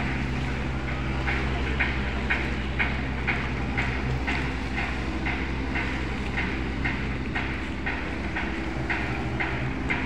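Shipyard launching machinery running with a steady low drone and a regular clack about twice a second, as a ship is let down the slipway on its rail carriage toward the water.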